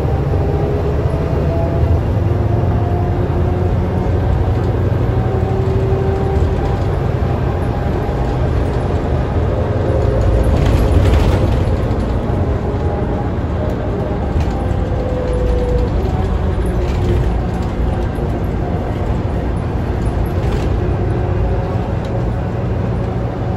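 Scania K320UA articulated bus heard from inside the passenger cabin while driving: a steady low rumble of engine and road noise with faint whining tones that drift up and down in pitch. It grows a little louder about halfway through, with a few light rattles.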